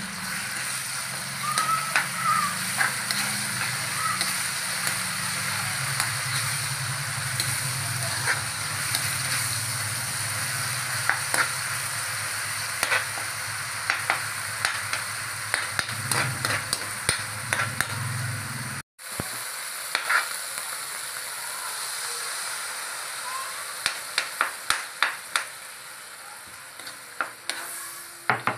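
Shrimp paste frying with onion and garlic in hot oil in a metal wok: a steady sizzle, with a metal spatula scraping and clicking against the pan as it is stirred. Near the end the sizzle dies down as coconut milk goes into the wok, while the spatula keeps clicking.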